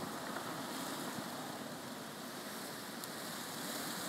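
Tropical-storm wind blowing steadily, an even noise with no distinct events.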